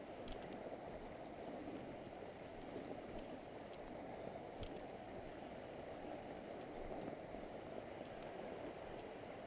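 Steady low rushing of the flowing river current, with a few faint clicks.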